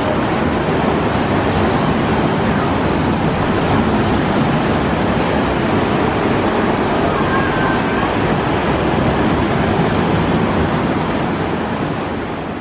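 Steady rushing noise of sea surf breaking on a sandy beach, mixed with wind, beginning to fade near the end.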